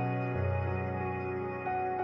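Background music: calm ambient, new-age style with sustained pitched notes changing chords every second or so.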